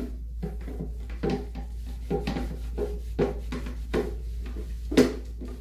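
Gloved hand wiping and scrubbing the inside of a plastic tub: a run of short rubbing strokes and light knocks against the plastic, with a sharper knock near the end.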